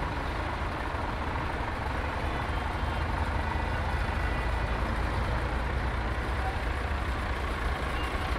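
Truck's diesel engine running steadily as it drives slowly past, a low even rumble.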